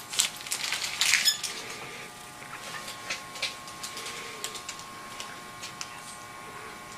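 Surgical instruments and supplies being handled: a rustle and several clicks in the first second and a half, then sparse light clicks. A faint steady hum sits underneath.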